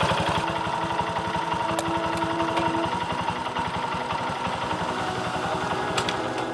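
Motorcycle engine running steadily at idle, its firing pulses coming evenly and quickly.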